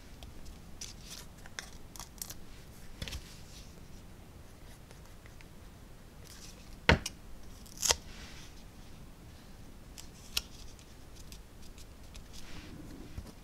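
Quiet handling of paper cut-outs and a plastic Tombow liquid-glue bottle on a craft mat: scattered small clicks, taps and rustles, the two loudest taps about seven and eight seconds in.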